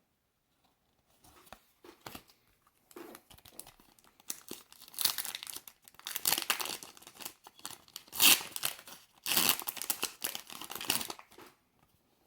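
Foil booster pack wrapper of Pokémon trading cards being torn open and crinkled: a long run of crackling tears and rustles that starts about a second in, grows loudest past the middle and stops shortly before the end.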